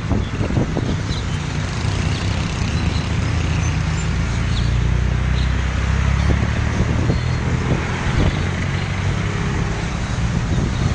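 Steady hum of road traffic and a running vehicle engine, with a few faint high chirps from the swallows roosting overhead scattered through it.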